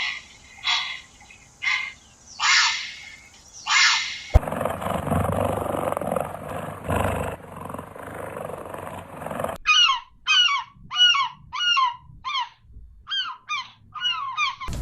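Animal calls in three spliced clips: first about six harsh, honking calls; then a stretch of steady noise; then a quick run of a dozen or so short calls, each falling in pitch.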